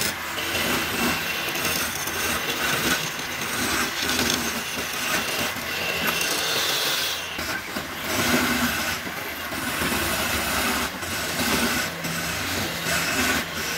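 Wood lathe running with a hand-held metal turning tool cutting into the spinning wooden spindle: a continuous rasping hiss of the cut over the machine's running, swelling and easing as the tool works.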